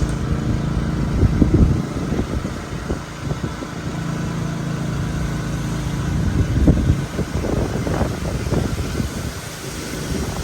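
Motor vehicle engine running steadily, a low hum with a few low bumps along the way.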